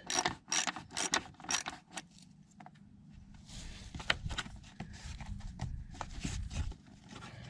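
Ratchet wrench with a 10mm socket clicking through a few quick strokes as a bolt on the plastic underbody cover is undone, then scattered metallic clinks and rustling as the tool is handled.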